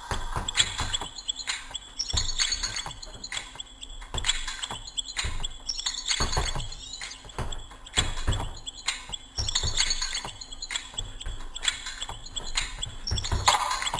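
Punches and kicks thudding irregularly into a hanging heavy punching bag, roughly one strike every half second to second.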